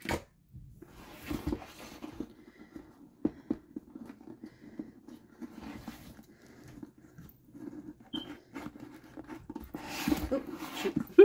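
Hands working a taped-shut cardboard box open: irregular rubbing, scraping and tapping on the cardboard, with a sharp knock at the very end as the lid comes free.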